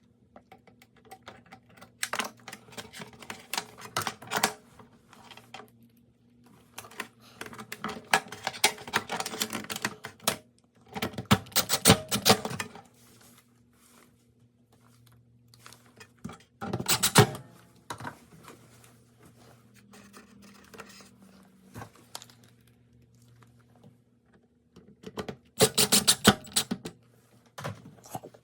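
Spells of rapid clicking, scraping and rattling from hard parts being handled, five separate bursts with pauses between, over a faint steady low hum.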